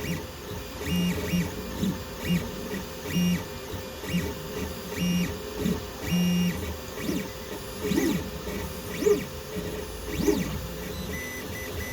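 Sunlu FDM 3D printer's stepper motors buzzing in short, stop-start bursts of steady tones as the print head moves during a print, with whines that rise and fall in pitch in the second half. A steady hum runs underneath.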